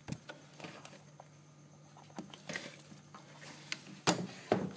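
A sharp click as the Roland W-30 workstation is switched on, followed by scattered small clicks and handling knocks, with two louder knocks near the end. A low steady hum runs underneath and dies away about three seconds in.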